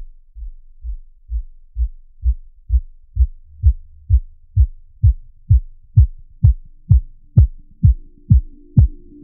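Electro house kick drum playing alone on every beat, about two hits a second, each a low hit that drops in pitch. The kicks grow louder and sharper through the build-up, and faint sustained synth tones join in the last couple of seconds.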